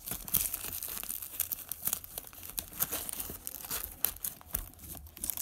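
Plastic wrappers and packets crinkling and rustling as hands handle bandage packets in a first-aid pouch, with irregular crackles throughout.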